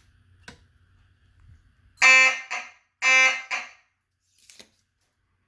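Simplex 2903-9001 fire alarm horn with 9838 horn sounding two short blasts about a second apart, each ending in a brief stutter. This is the walk-test signal for zone 2: two pulses for the zone number, chopped by the NAC encoder being left in march time instead of continuous.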